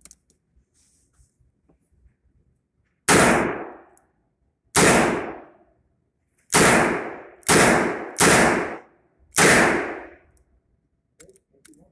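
Six shots from an H&R Model 923 .22 LR revolver at an uneven pace, each a sharp crack with a short ringing tail.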